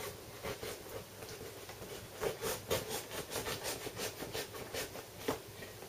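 Duct-taped cardboard packaging being scraped and worked at by hand: a run of quick, irregular scrapes and clicks, several a second.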